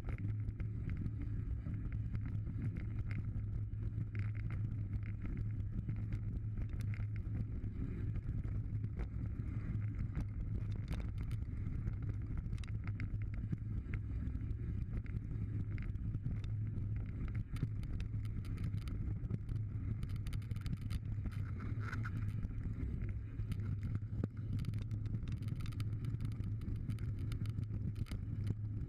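Mountain bike riding fast down a dirt and gravel trail: a steady low rumble of tyre and wind noise on the microphone, with frequent small clicks and rattles from the bike and loose stones.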